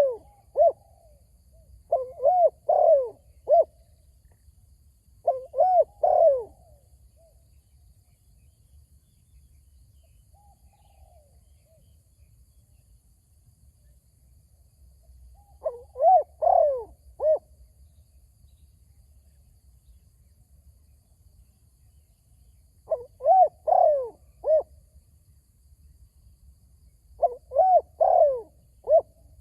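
Spotted doves cooing: phrases of three to five rounded, arching coos, repeated six times with pauses of several seconds between them, and one fainter, more distant phrase in the middle.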